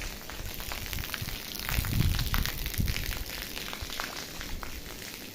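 Light rain falling: a steady hiss with many small drop ticks, and a few low thuds, the loudest about two seconds in.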